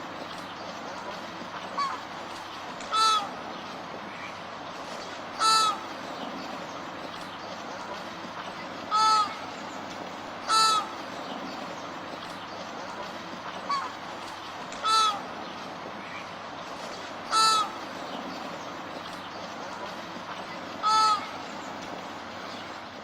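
Flamingo giving short calls, about seven loud ones a few seconds apart with a couple of fainter ones between, over a steady background hiss.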